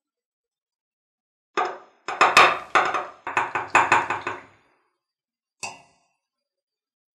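Metal tweezers clinking against knife parts and the side of a glass bowl of liquid. About a second and a half in comes a quick string of taps and knocks, lasting about three seconds, then one single tap near the end.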